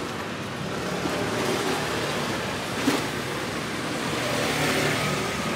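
Steady road traffic noise, with one short knock about three seconds in as a kitchen knife slicing kamaboko fish cake comes down on the wooden chopping board.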